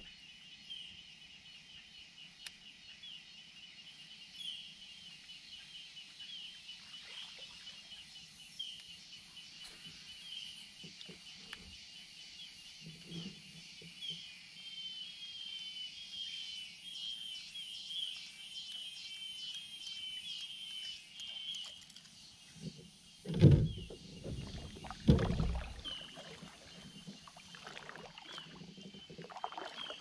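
Short high chirps from wildlife repeat about once a second, packing closer together in the middle. About two-thirds of the way through come two loud thuds with splashing as the kayak paddle is taken up and dipped into the water.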